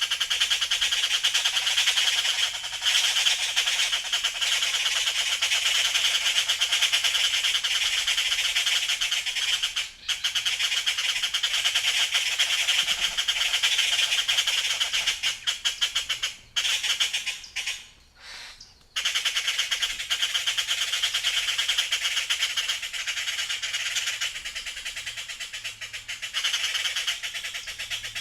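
A dense chorus of many birds chirping and chattering continuously. It breaks off briefly about ten seconds in and again for a second or two past the middle.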